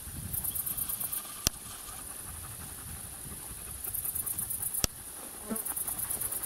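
Insects chirping in the meadow grass: high, rapid trills in bursts about a second long, three times, with two sharp clicks in between.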